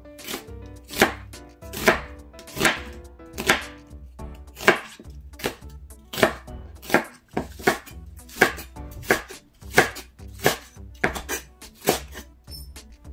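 Chef's knife chopping onion, then green onion, on a wooden cutting board. Each cut ends in a sharp knock of the blade on the wood, at a steady unhurried pace of a little over one cut a second.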